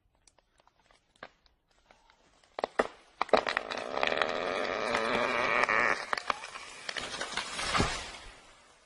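Scattered sharp cracks, then a loud wavering creak full of snapping cracks that ends in a heavy low thud just before it fades, like wood splitting under strain and a heavy trunk coming down.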